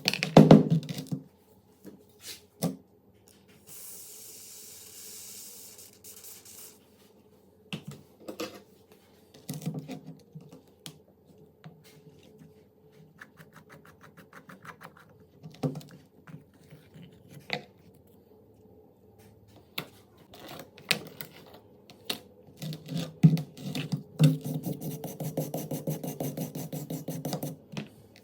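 Hand work on a rusty pistol's metal parts: scattered clicks and knocks, a short hiss about four seconds in, fast rasping near the middle, and a long bout of scraping and rubbing near the end.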